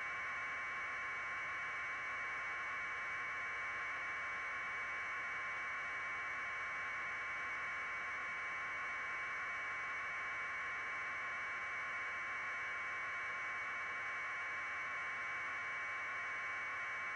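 Steady, unchanging static hiss confined to a narrow middle band of pitch, with no other sound in it.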